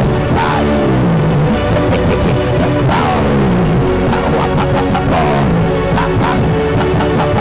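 Dramatic background music with a steady beat and tones that slide downward again and again.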